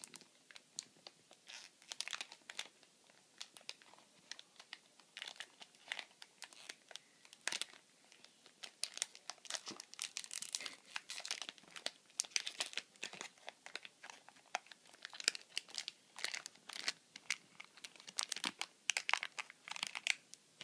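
Wrapping paper crinkling and tearing as a small gift-wrapped package is picked open by hand: irregular crackles and rustles throughout.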